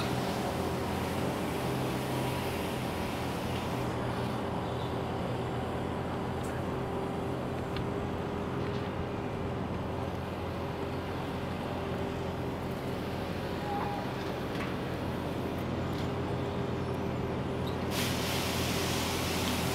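A recording of a steady mechanical rumble with a constant low hum, like a large vehicle's engine running, played over loudspeakers. The high hiss drops away about four seconds in and comes back suddenly near the end.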